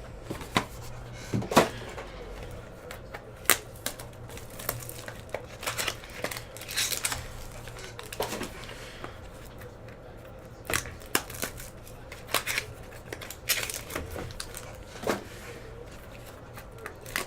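Trading-card packs being torn open and handled: irregular crinkling and tearing of wrappers with scattered clicks and taps, over a steady low hum.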